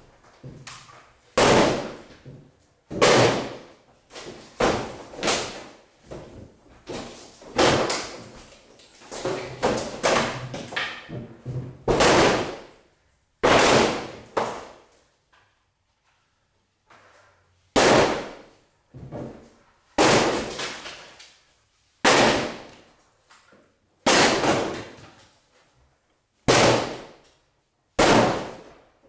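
Repeated heavy blows against a freestanding wooden door, more than a dozen sharp bangs at uneven intervals of one to two seconds, each trailing off in echo, with a short pause past the middle. The door's panels are being broken open.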